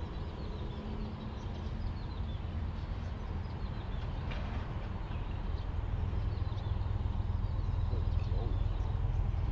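Low, steady rumble of traffic on the elevated viaducts overhead, swelling toward the end, with faint scattered bird chirps.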